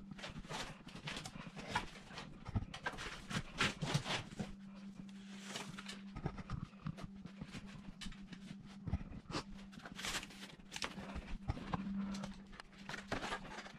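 Rustling of foam packing wrap with irregular clicks and knocks as the parts of a newly delivered electric trike are unwrapped and handled, over a steady low hum.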